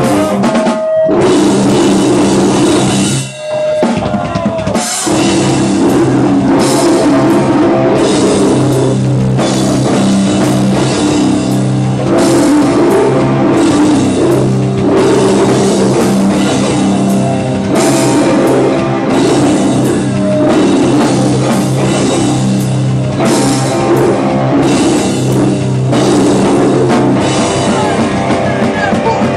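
Hardcore band playing live and loud: full rock band sound driven by a drum kit and cymbals. It breaks off briefly a couple of times in the first five seconds, then the whole band plays on steadily.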